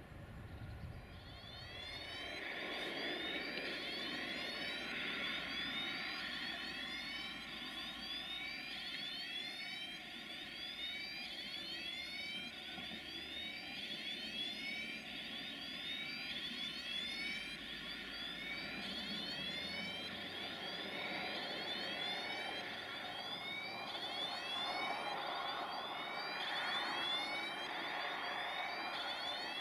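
Approaching freight train of tank wagons hauled by an electric locomotive, with a high-pitched warbling squeal from the wheels and rails. The squeal rises in the first couple of seconds and then keeps on steadily.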